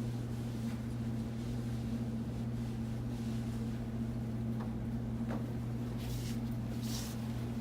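Steady low electrical or machine hum, with soft rustling and handling noises about five to seven seconds in.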